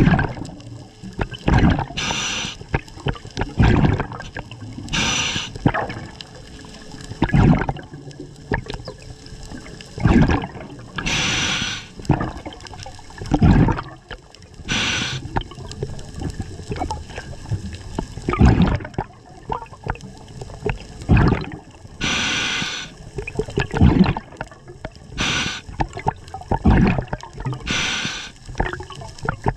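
Scuba diver breathing through a regulator underwater: a hiss through the demand valve on each inhale, then a gurgling rush of exhaled bubbles, one breath every few seconds.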